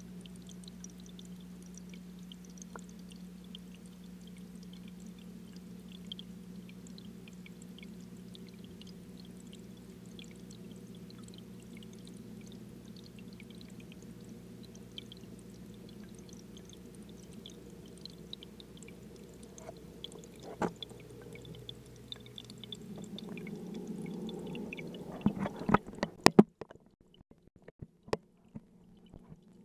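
Muffled underwater sound inside a home aquarium: a steady low hum with faint scattered ticks. Near the end a run of loud knocks and bumps, after which the hum stops and it goes nearly quiet apart from a few clicks.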